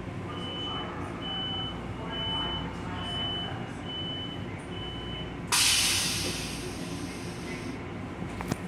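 Inside an M7 railcar's restroom: six short, evenly spaced high beeps, then a sudden loud rush of air that fades over about two seconds, over the steady rumble of the moving train.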